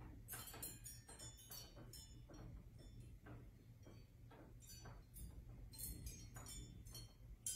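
Glass crystal strands of a ceiling chandelier faintly clinking and tinkling against each other in quick, irregular clicks, shaken by an earthquake.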